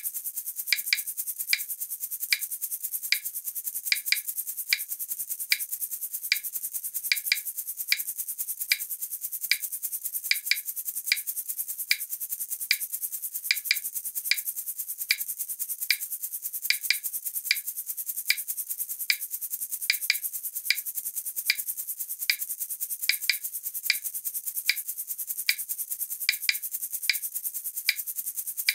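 Light, rhythmic clicking, about two clicks a second, over a steady high hiss: a soft percussive backing of a rattle or shaker kind.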